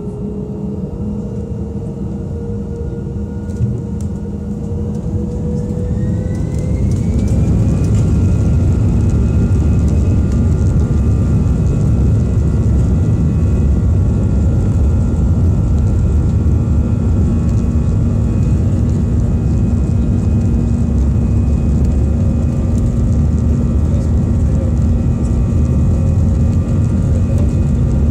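Airbus A320's turbofan engines heard from inside the cabin, spooling up to takeoff thrust with a rising whine over the first several seconds. They then run steadily at full power with a deep rumble as the airliner accelerates on its takeoff roll.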